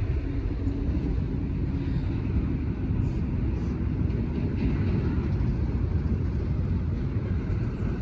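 Steady low rumbling noise, even throughout with no distinct events, of the kind left by wind on the microphone or distant traffic.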